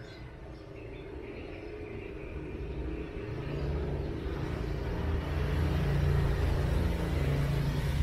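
A low rumble that swells from about three seconds in and stays loud.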